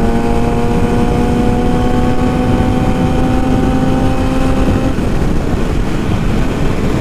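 Yamaha R6's inline-four engine with an aftermarket exhaust running at steady revs while riding, over heavy wind rush on the microphone. The engine note creeps slightly higher, then drops away about five seconds in.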